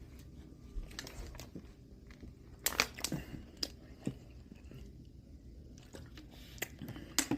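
A person biting and chewing crunchy food, with a cluster of sharp crunches about three seconds in and a few more near the end.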